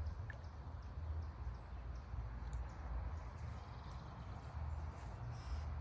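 Outdoor ambience: a low, uneven rumble with faint, short, high chirps scattered through it.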